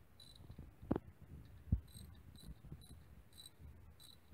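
A ratchet and socket extension knock and tap against the engine's spark plug well, two sharp knocks about a second apart being the loudest. A cricket chirps in short, evenly repeated bursts about twice a second throughout.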